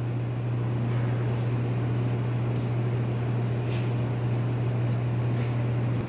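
A steady, low machine hum with a faint hiss, unchanging throughout.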